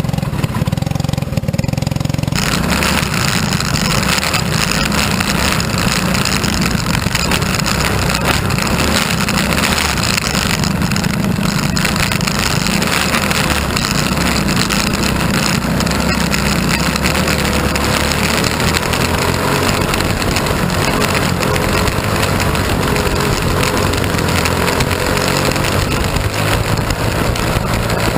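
Onboard sound of a mini wedge dirt-track race car under way: its engine runs hard and loud under a steady rush of noise over the open cockpit. The engine pitch rises and falls through the last several seconds as the car goes through the turns.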